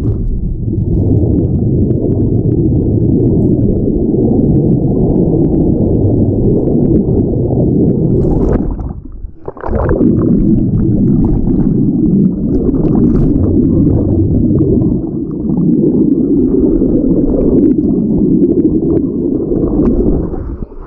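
Rushing river water recorded with the camera submerged: a loud, muffled, churning rumble that briefly drops away about nine seconds in, then comes back.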